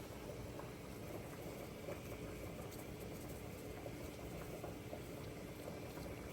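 Faint bubbling and small pops of food simmering on the stove, over a steady low hum.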